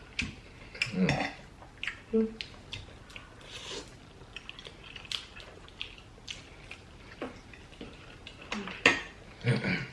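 Forks and spoons clinking and scraping against plates and bowls, with chewing, in scattered short knocks; the loudest come near the end.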